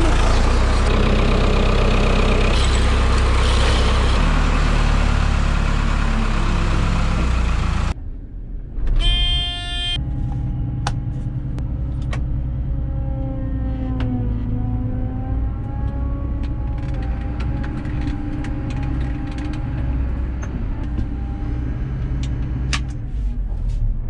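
Tractor's diesel engine running, loud and close at first, then after a cut heard from inside the cab, its pitch dipping and rising slightly, with scattered clicks. A short steady tone sounds about nine seconds in.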